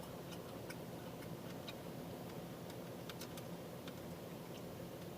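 Quiet chewing close to the microphone: scattered soft clicks and smacks of the mouth at uneven intervals, over a low steady hum.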